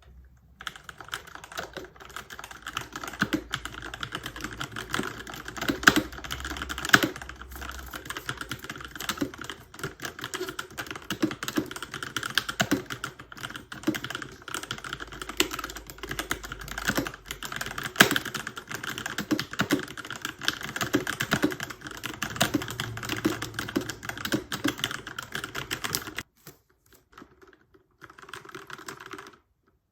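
Keychron K6 mechanical keyboard with Gateron Red linear switches being typed on: a quick, continuous run of key clacks. The typing stops for about two seconds near the end, then a few more keystrokes follow.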